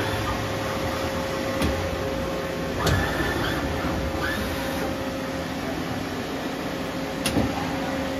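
Steady machine hum from a Doosan Z290SMY CNC turn-mill under power, with one steady mid-pitched tone running through it. A few sharp clicks and knocks come about a second and a half in, near three seconds in, and near the end.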